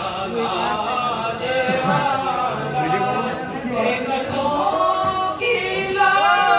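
A crowd of men's voices chanting together in a devotional chorus at a shrine, rising louder about five seconds in.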